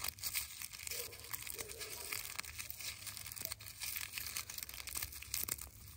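Mesh bag holding a dry sunflower head and loose seeds crinkling and rustling as it is handled, with many small scattered crackles.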